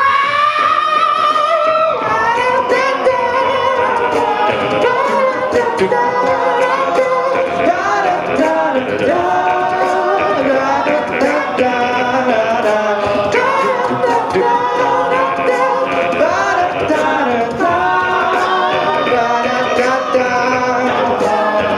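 All-male a cappella group singing in close harmony, a full chord entering at once and carrying on throughout. Vocal-percussion ticks from a beatboxer keep a steady beat.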